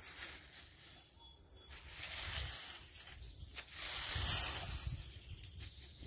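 Long-handled rake scraping and dragging through dry leaves and loose dirt: two long strokes, one about two seconds in and a louder one about four seconds in.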